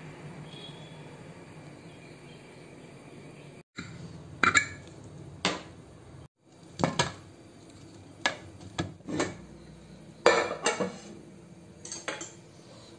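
Aluminium pressure cooker and its lid clanking and clinking as the lid is handled and taken off, about a dozen sharp metal knocks from about four seconds in. Before that, only a low hum with faint chirps.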